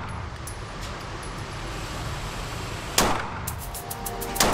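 Two 9mm shots from a Glock 43X pistol on an indoor range, one about three seconds in and the next right at the end, each a sharp crack with a short echo off the range walls. Background music comes in under them shortly after the first shot.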